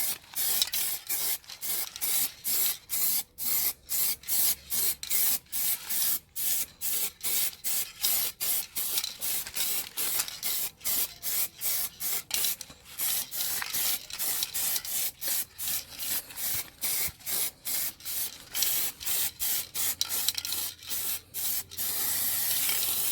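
Aerosol spray-paint can hissing in rapid short bursts, about two or three a second, as the nozzle is pressed and released, with one longer unbroken spray near the end: a heavier final coat going onto a wheel rim.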